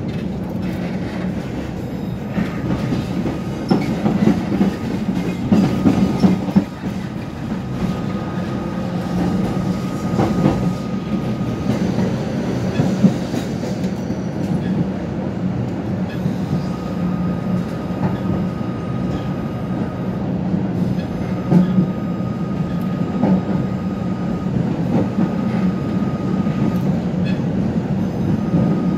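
Tatra-Yug K1M8 articulated tram running along the track, heard from inside the passenger saloon: a steady rumble of wheels and running gear with scattered knocks over rail joints. A thin high whine comes and goes for several seconds at a time.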